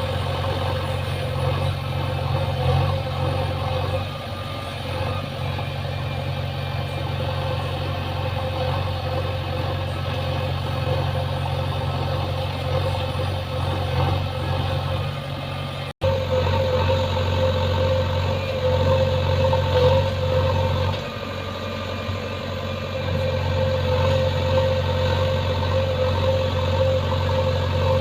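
Engine running steadily at idle, with a steady low hum. About halfway through the sound breaks off abruptly and resumes.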